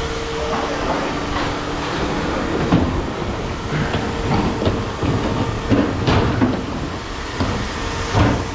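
Scrap metal clanking and rattling as it is handled and moved, with irregular knocks and clatters.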